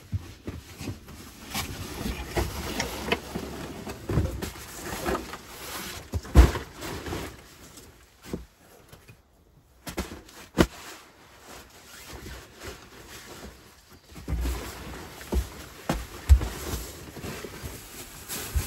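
A person handling a backpack and moving about: rustling of clothing and pack fabric, with footsteps and several sharp knocks.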